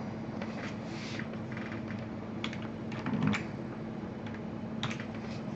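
A few scattered clicks and taps on a computer mouse and keyboard, over a steady low hum.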